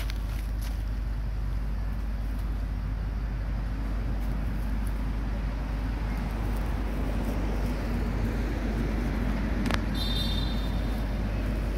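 Steady low outdoor rumble of background noise, with one light click and a brief high chirp near the end.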